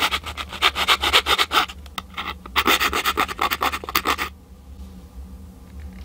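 Small hand file rasping back and forth in quick strokes on the leading edge of a homemade battery adapter, smoothing that edge so a battery will slide in more easily. There are two runs of strokes with a short pause between them, and the filing stops about four seconds in.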